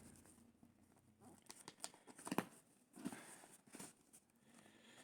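Tightly sealed mouse packaging being worked and pried open by hand: faint crinkling and tearing with scattered sharp clicks, one louder click about two and a half seconds in.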